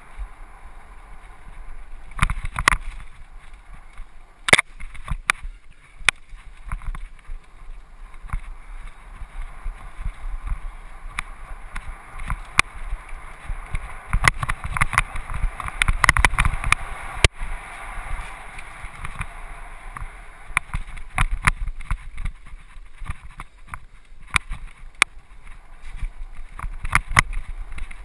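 Mountain bike ridden fast over a dirt singletrack, heard from a camera mounted on the bike or rider: a steady rush of tyre and wind noise, with frequent sharp clicks and clatters as the bike rattles over bumps.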